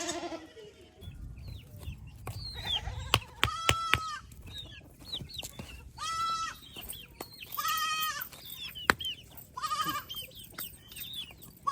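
Goats bleating repeatedly, each bleat a short arched high-pitched call, with short high chirps and a few sharp clicks in between.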